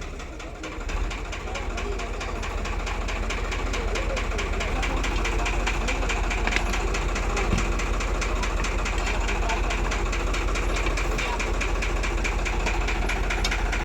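New Holland tractor's diesel engine running, picking up revs about a second in and then holding steady with a fast, even firing rhythm.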